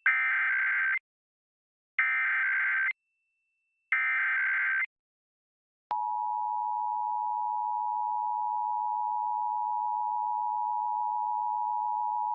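Emergency Alert System required monthly test: three one-second bursts of SAME digital header data, a second apart. Then, about six seconds in, the steady two-tone EAS attention signal starts and holds.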